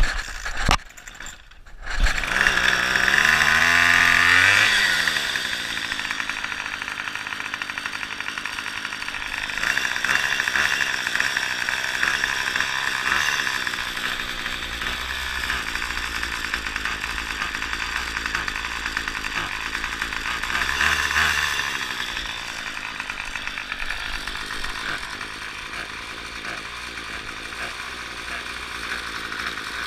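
Gas string trimmer engine starting about two seconds in after a few short sharp sounds, then running: it revs up and back down right after catching, and runs on with louder, faster stretches about a third of the way through and again about two-thirds through.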